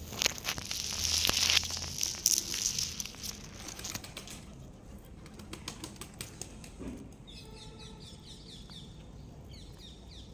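Indian star tortoise biting and chewing cucumber, a loud crackly, rustling crunching for the first few seconds that settles into softer scattered clicks. Small birds chirp in the background about seven seconds in.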